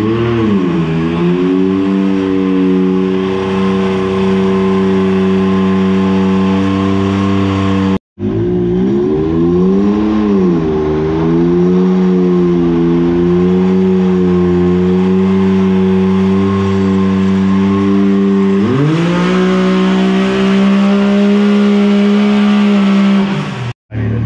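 Can-Am X3 Turbo RR's turbocharged Rotax three-cylinder engine on a hub dyno, running through a cat-delete exhaust. It revs up and holds a steady high pitch under load, as in a dyno pull. The sound breaks off abruptly twice, then comes back revving up again and later climbs to a higher steady pitch.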